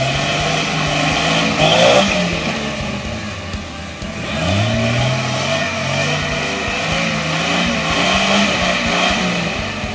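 Jeep Wrangler YJ engine revving under heavy load as it drives through deep mud, the pitch climbing in two surges: one near the start and a second about four and a half seconds in.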